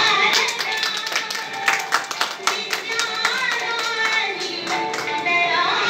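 A scattered run of hand claps over background music with singing.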